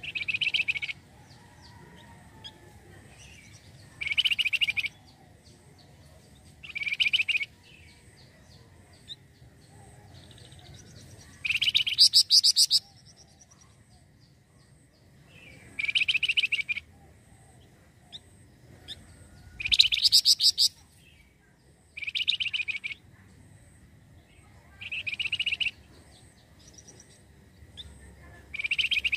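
A flamboyan (wergan jawa) songbird singing: short, fast trilled phrases about a second long, repeated every three seconds or so.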